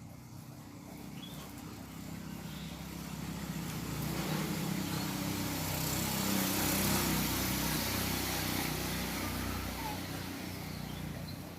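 A motor vehicle passing by: its engine hum and road noise swell to their loudest about midway, then fade away. A few faint bird chirps are heard near the start and the end.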